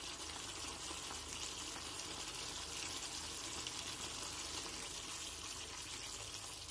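Thick tamarind gravy (puli kuzhambu) boiling steadily in a kadai.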